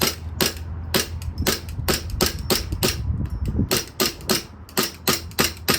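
Gas blowback airsoft Glock pistol being fired in a steady string of about twenty sharp shots, roughly three a second.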